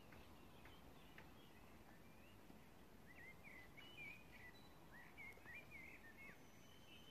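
Faint birdsong: a run of short, quick chirps and warbles, busiest in the middle, over a low steady background hiss.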